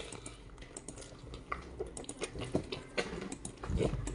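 Wet, irregular clicks and smacks of a mouth chewing raw octopus pushed in by the fingers.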